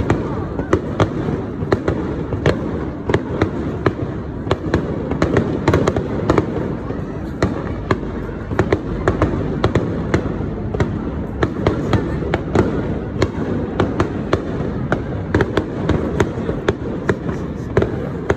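A barrage of aerial firework shells bursting: many sharp bangs and crackles, several a second and unevenly spaced, over a steady low noise.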